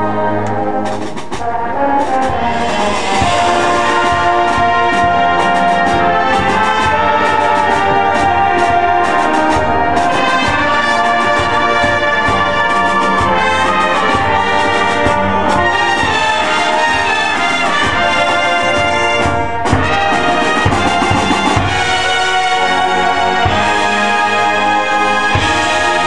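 High school marching band playing its field show, with the brass section loud and full over frequent drum hits.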